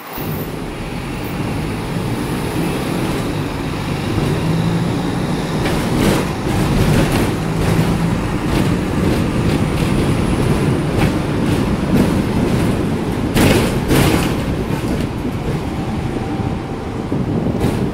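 Hong Kong double-decker electric tram running along its street track, heard from on board: a steady rumble of wheels on rails with a low motor hum, and several sharp clatters, loudest about thirteen to fourteen seconds in.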